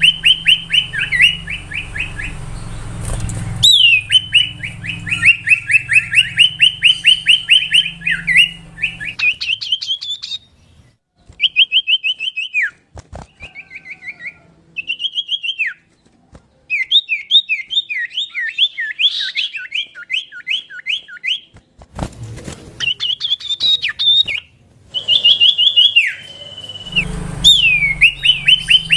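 Common iora (cipoh) singing: fast runs of repeated clear whistled notes, several a second, in bursts with short pauses between them. A low hum sits under the song near the start and near the end.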